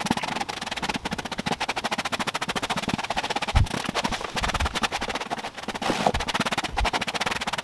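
Stiff-bristled hand brush scrubbing a car's floor carpet in rapid, even back-and-forth strokes, raking dog hair out of the pile, with a few dull knocks in the middle.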